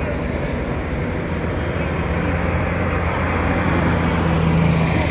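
Large farm tractor's diesel engine running as the tractor drives slowly past close by, a steady low drone that grows louder toward the end, over the sound of passing car traffic.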